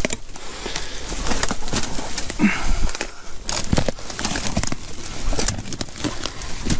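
Footsteps crunching through dry leaf litter and twigs, with brush crackling and rustling in a run of irregular clicks.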